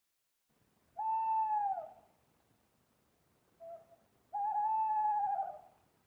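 Owl hooting: two drawn-out hoots about a second long each, the first falling in pitch at its end, with a short soft note just before the second.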